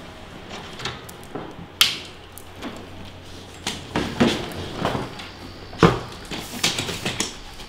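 A room door unlatched and pushed open, followed by a string of footsteps, knocks and handling sounds as people walk in with their bags, over a faint low hum.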